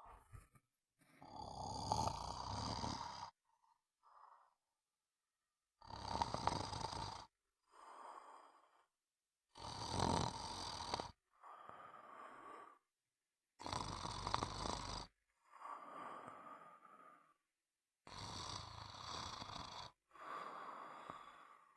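A person snoring rhythmically in sleep: a louder rasping snore alternates with a softer breath, with short silent gaps, one cycle about every four seconds.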